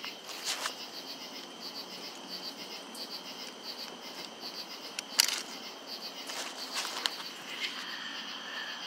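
Night chorus of crickets and other insects chirping steadily, with a high pulsed call repeating a few times a second. A few short sharp knocks of handling cut through, the loudest about five seconds in.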